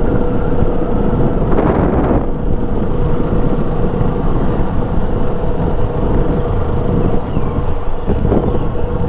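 KTM motorcycle engine running steadily at cruising speed, its note held even, mixed with wind rushing over the camera microphone. There is a brief louder gust about two seconds in.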